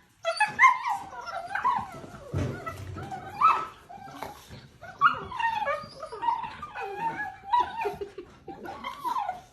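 A dog whining and yipping in a long string of short, high calls that bend up and down in pitch, with a brief lull about four seconds in.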